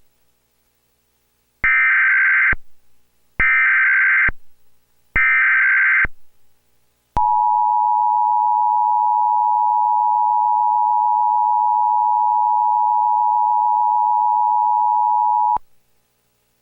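Emergency Alert System header: three screechy bursts of digital data tones, each about a second long, carrying a Child Abduction Emergency (AMBER Alert) code. Then the two-tone attention signal sounds steadily for about eight seconds and cuts off sharply. These tones announce that an emergency alert message follows.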